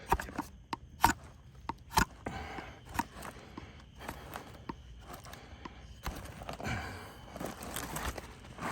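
Freshly sharpened ChipAway drawknife being pulled through wood, giving scraping, rasping strokes. There are sharp knocks about once a second in the first three seconds.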